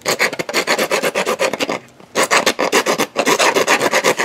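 A hand wood file rasped rapidly back and forth across a white PVC pipe elbow, shaving down the small moulded knob that sticks out from the fitting. The quick strokes break off briefly just under two seconds in, then resume.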